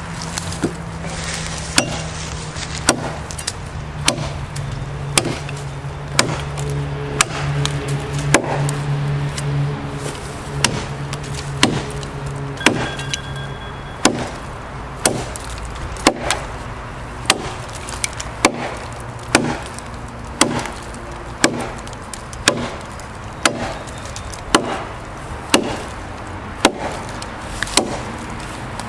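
Large chopping knife striking into a hardwood log, evenly paced blows about once a second. A low steady hum runs underneath, strongest in the first half.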